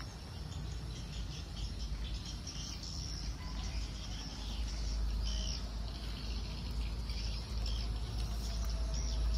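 Small birds chirping in short, broken calls over a steady high insect buzz, with a low rumble underneath.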